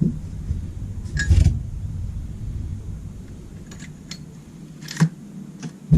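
A few light clicks and knocks of fork parts being handled while a new seal and washers are fitted on a motorcycle fork tube, over a low hum that fades out about halfway through.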